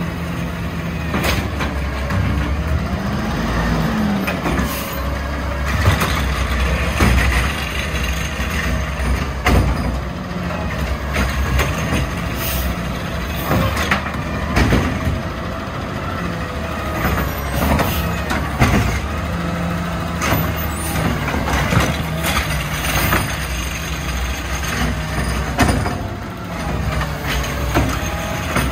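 McNeilus ZR automated side-loader garbage truck working curbside carts: the diesel engine runs steadily while the hydraulic arm whines, with repeated knocks and bangs as carts are gripped, lifted and dumped into the hopper, and air-brake hisses.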